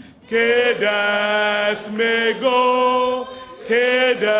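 Male voices singing a chant-like song, long held notes broken by short breaks between phrases.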